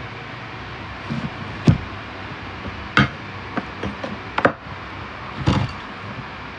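Eating sounds at a meal: a scattering of sharp clicks and knocks at irregular spacing, the loudest about a second and a half in, three seconds in and four and a half seconds in.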